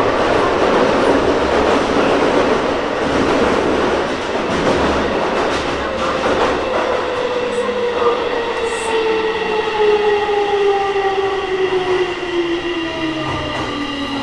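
Tokyo Metro 16000 series subway car running underground, with a Toshiba IGBT inverter driving permanent-magnet synchronous motors. The wheel and rail noise is heard from inside the car. From about six seconds in, the traction motors give a whine of several tones that falls steadily in pitch as the train brakes, slowing from 50 to 25 km/h into a station.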